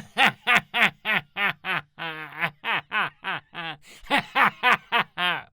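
A cartoon character's voice laughing in a fast run of short pitched 'ha' syllables, about four a second, with a wavering stretch partway through; it stops abruptly.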